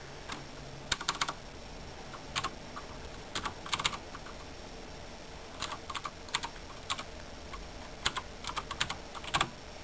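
Computer keyboard being typed on in several short bursts of keystroke clicks, with pauses between them.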